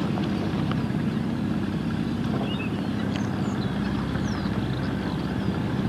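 Gravel-pit dewatering pump running with a steady low drone as it pumps water out of a newly dug pit.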